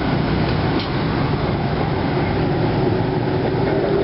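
Steady rumble of vehicle noise, with a steady hum coming in about two seconds in.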